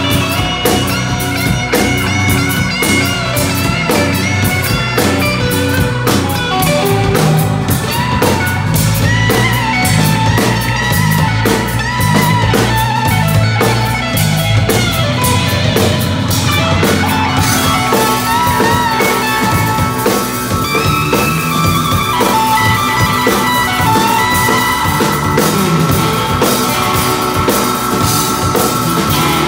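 A live blues-rock band playing an instrumental jam: electric guitar, electric bass, drum kit and a Nord Electro 2 keyboard. Lead lines with bent, wavering notes ride over busy cymbals, which thin out a little past halfway as a high note is held.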